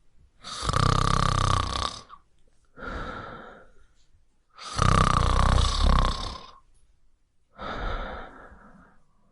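A person snoring loudly: two long snores, each followed by a shorter, quieter one.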